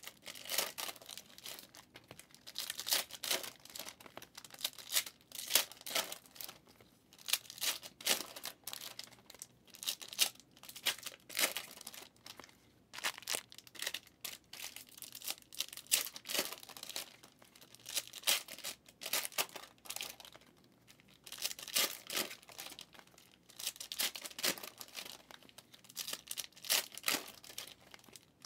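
Trading-card pack wrappers being torn open and crinkled, with the cards inside handled, in quick irregular bursts of rustling and ripping one after another.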